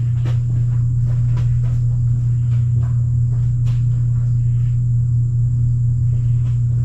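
A steady low hum runs throughout, with scattered light clicks and taps over it, like footsteps and the handling of parts.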